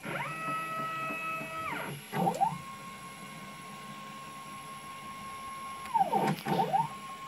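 Stepper motors of a DIY CNC router jogging its axes from a joystick pendant: a pitched whine that ramps up in pitch, holds steady and ramps back down at each move. There are several moves in a row, the longest about four seconds.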